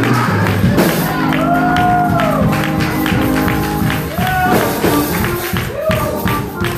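Church praise music: long held chords with a steady percussive beat, and voices singing and calling out over it.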